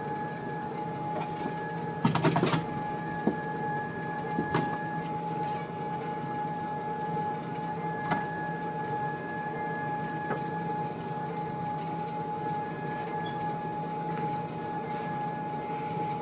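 Sole treadmill running, its motor giving a steady whine over a low hum as the belt turns. A short cluster of knocks about two seconds in, with a few single clicks after.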